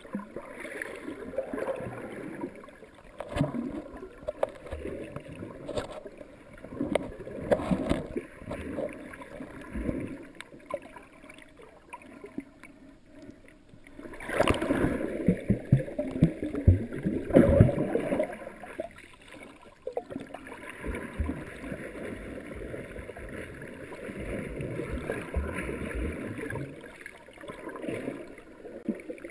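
Muffled underwater water noise and gurgling, heard through a GoPro's sealed dive housing, with scattered small knocks and an uneven rise and fall. A louder stretch of sloshing comes about halfway through.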